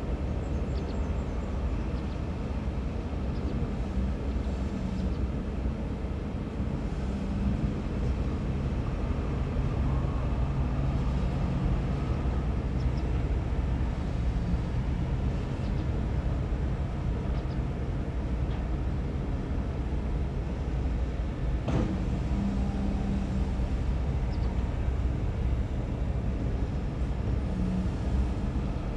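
Heavy diesel engines of dump trucks and earthmoving machinery running: a continuous deep rumble whose engine note swells at times, with one sharp knock about three quarters of the way through.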